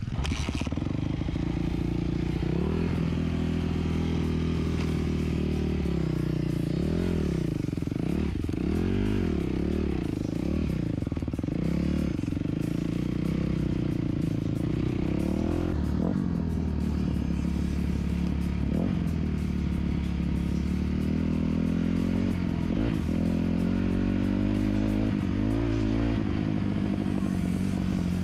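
Yamaha 250 YZF dirt bike's four-stroke single-cylinder engine running under riding load, its pitch rising and falling again and again as the throttle is worked and the gears change.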